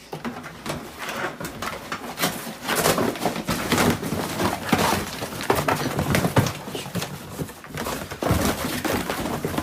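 Packaging and items being handled and unpacked: irregular rustling, crinkling and knocking throughout.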